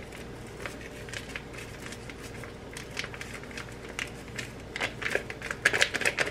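Plastic taco seasoning packet crinkling as it is shaken and squeezed empty over a pot: scattered light crackles that grow denser and louder near the end.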